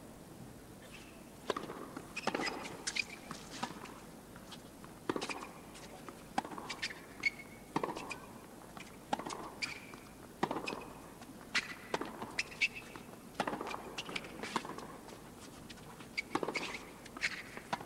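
Tennis rally on a hard court: a serve and then racket strikes and ball bounces, roughly one every second, with short squeaks from the players' shoes on the court between them.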